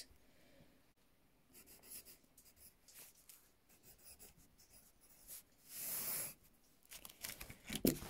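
Faint handling noises: light scratching, rubbing and small taps of hands working a small object, with one soft hiss about six seconds in.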